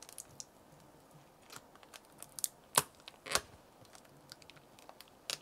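Thin adhesive-backed black plastic sheet being peeled and prised off the back of a laptop keyboard with a small screwdriver, giving scattered crackles and clicks, with a couple of louder ones about three seconds in.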